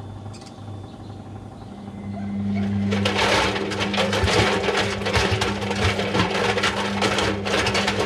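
Front-loading washing machine starting a wash: its drum motor begins a steady hum about two seconds in. About a second later the drum turns, and water-filled balloons and water tumble and slosh inside it in a dense run of soft knocks.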